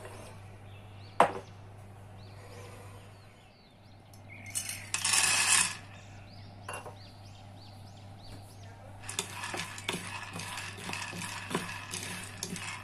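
A single sharp knock about a second in, then a brief rattling rush as raw peanuts are poured into a nonstick frying pan. From about nine seconds on, the peanuts rattle and click against the pan as a wooden spatula stirs them, dry-roasting over a medium flame.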